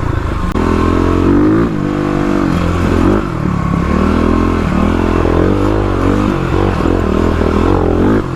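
Kawasaki KLX351 single-cylinder four-stroke dirt bike engine with an aftermarket header and exhaust, ridden off-road and lugging up a hill in second gear. Its pitch rises and falls again and again with the throttle.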